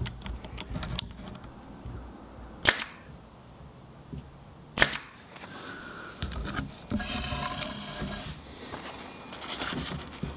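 A 23-gauge pin nailer firing two sharp shots about two seconds apart, driving pin nails into wooden trim. Lighter clicks come in the first second, and other rustling noise follows later.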